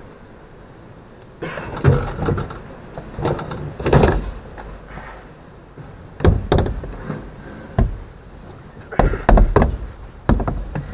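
Irregular clunks and knocks: a few duller ones in the first half, then sharper knocks about six seconds in and a quick cluster near the end.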